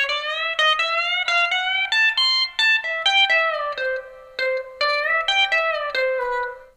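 Pedal steel guitar played solo: a quick country phrase of short picked single notes and double stops, moving from a G to a C chord, with several notes gliding up or down in pitch. The sound cuts off abruptly at the end.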